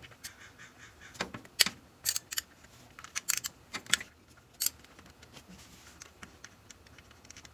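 Hand ratchet clicking in short, irregular runs as it loosens 10 mm coil-pack bolts, going quiet after about five seconds.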